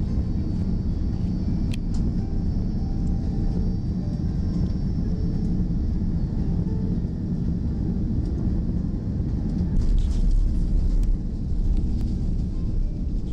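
Airbus A330 cabin noise while moving along the ground: a steady, loud low rumble of engines and rolling wheels, swelling deeper and louder about ten seconds in.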